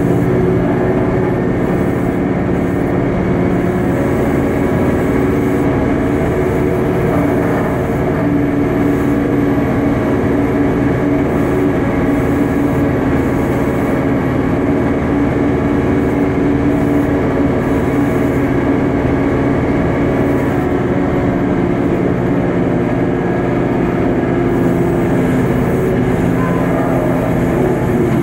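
Airbus A330-200 being pushed back by a tug on a towbar at the nose gear: a loud, steady mechanical drone with several held tones and little change in pitch.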